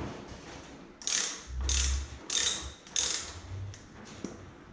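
Ratchet wrench cranked back and forth in four short rasping strokes, tightening the front axle nut of a Kawasaki KLX125 dirt bike, with a dull knock of the wheel under the second stroke.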